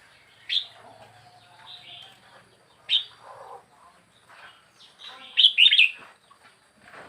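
Wild-caught red-whiskered bulbul, four weeks in a cage, calling. It gives short, sharp chirps about half a second in and near three seconds, with softer calls between, then a louder quick run of notes around five and a half seconds.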